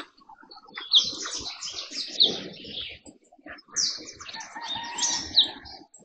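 Wild birds chirping and calling in short, sharp high sweeps, loudest four times. Underneath are soft knocks and rustles from birds moving about on the wooden feeder platform.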